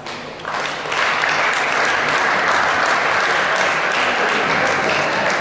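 Spectators clapping in applause after a point is won, starting about half a second in and building to a steady round of claps.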